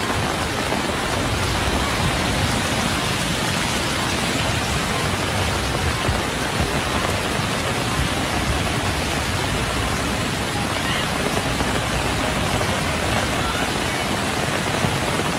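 Flash-flood water rushing, a steady, unbroken noise of fast-flowing muddy torrent and heavy rain.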